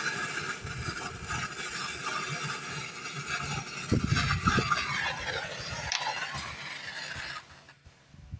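Brazing torch flame running with a steady hiss while heating a refrigerator compressor's two brazed tube joints to unsolder them, with a few low knocks about four seconds in; the flame cuts off suddenly near the end.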